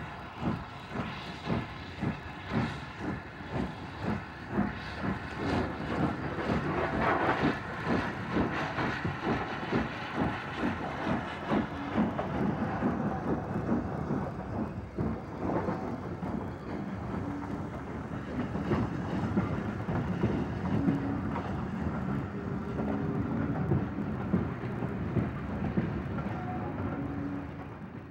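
Southern Railway N15 King Arthur class two-cylinder steam locomotive No. 777 Sir Lamiel working a train away, with sharp exhaust beats about two a second. The beats then merge into a steady rumble as the engine and its coaches roll past, falling away just before the end.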